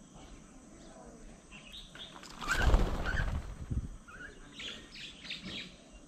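A group of mynas flushing off a bird table all at once: a loud burst of wing flapping about two and a half seconds in, lasting over a second, with short sharp calls around it. A sudden take-off of the kind the uploader suspects a predator or a cat is causing.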